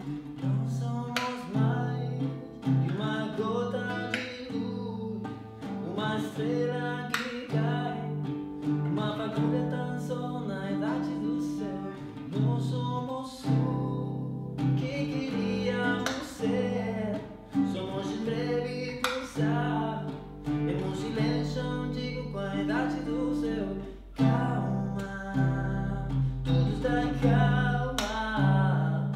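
A man singing to his own nylon-string classical guitar, which he plucks and strums in a gentle acoustic song.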